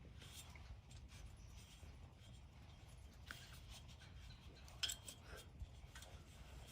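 Near silence: a faint low rumble with scattered small clicks and rubbing scrapes, and one sharper click about five seconds in.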